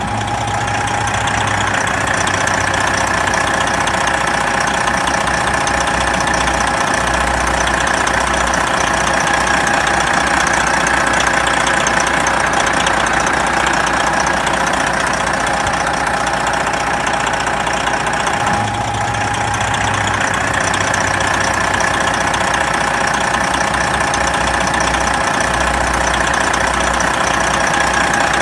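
Big truck diesel engine running steadily at low speed, with a brief slight dip about two-thirds of the way through.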